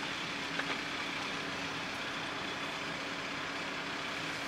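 Car driving along a road, heard from inside the cabin: steady engine and tyre noise with a faint steady hum.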